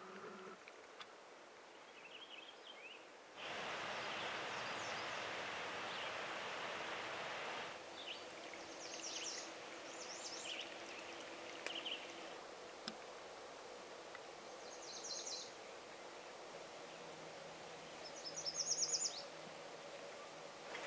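Songbirds calling in short high chirps and trills over a steady outdoor hiss, with a louder stretch of rushing noise a few seconds in; the loudest call is a rapid trill near the end.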